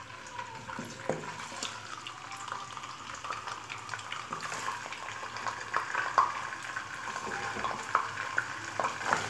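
Fish heads and bones sizzling in hot ghee in a karahi: a steady frying hiss with scattered sharp crackles and pops.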